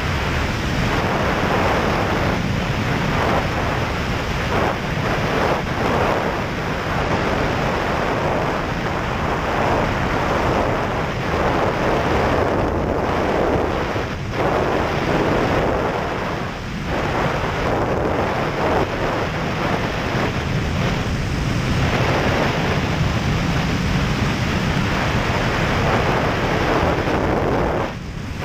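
Dense wind noise buffeting the microphone of a camera mounted under the wing of an Ikarus C42 microlight in flight, with the aircraft's engine and propeller running underneath. The rush eases briefly a few times.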